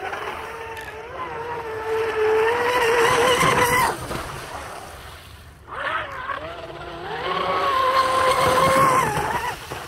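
Pro Boat Blackjack 42 RC boat's brushless electric motor whining at high speed over the hiss of the hull on the water. The whine cuts off suddenly about four seconds in, comes back about six seconds in and eases off near the end.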